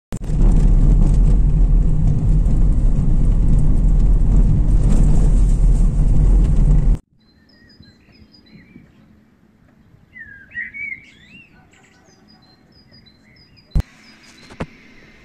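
Loud steady rumble of a car driving on a gravel forest road, heard from inside the cabin, cutting off abruptly about seven seconds in. Then birds chirping and warbling, with two sharp knocks near the end.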